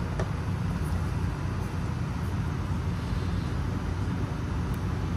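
Steady low rumble of room background noise, with a few faint light clicks as the camera and its lens guard are handled.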